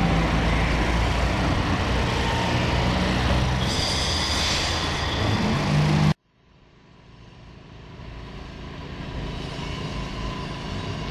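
Electric street tram passing close by, its wheels rumbling on the street rails, with a brief high squeal about four seconds in. The sound cuts off abruptly about six seconds in, and a much quieter, steady hum fades back in.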